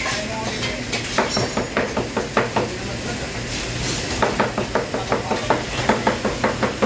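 Busy wok kitchen: metal ladles clanking and scraping against woks over a steady hiss and hum of burners and frying. From about four seconds in the clanks come faster and more regular, several a second.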